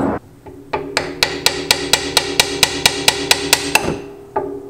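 Hammer striking metal in a quick, even series of about four blows a second, each leaving a short ringing tone, then a pause and a single slower blow near the end.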